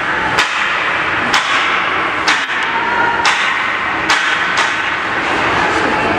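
Ice arena during a ringette game: steady background noise broken by sharp cracks of impact, about one a second, six in all.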